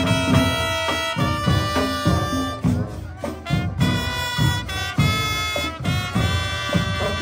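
Brass-band music: horns holding chords over a steady drum beat.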